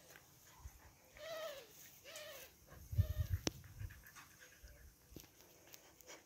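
Dogs play-fighting: three short, whiny yips that rise and fall in pitch, with a low rumbling scuffle and a sharp click about three seconds in.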